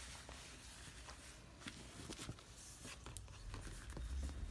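Faint rustling of a cloth diaper being handled, with a few light ticks and a low rumble near the end.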